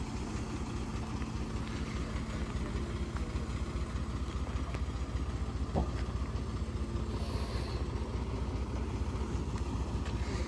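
Loaded lorry's diesel engine running steadily at low revs as the truck crawls round a hairpin bend, with one short knock about six seconds in.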